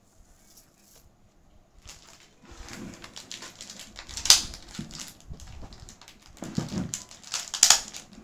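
Plastic jewellery packets rustling and crinkling as they are handled, starting about two seconds in, with two sharp, louder crackles, one near the middle and one near the end.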